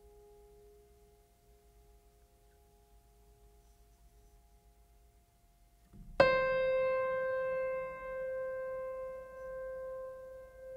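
Soft background music: faint held notes, then about six seconds in a single piano note struck loudly and left ringing, slowly fading.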